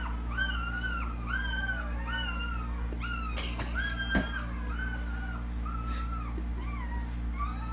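A cat meowing over and over, short rising-and-falling mews about twice a second, over a steady low hum. A single sharp knock about four seconds in.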